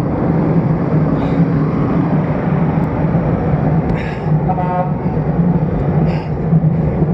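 Wind and road rumble from a road bike riding along, picked up by an action camera mounted on the stem top cap, with a steady low hum. About four and a half seconds in there is a brief pitched toot.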